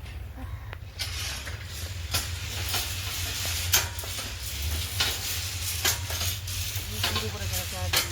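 Irregular mechanical clicks and knocks over a steady hiss and a low hum.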